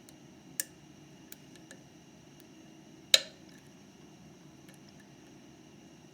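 Metal lock picks working inside a Mauer MLS euro cylinder lock: a few small ticks and taps, with one sharp metallic click about three seconds in.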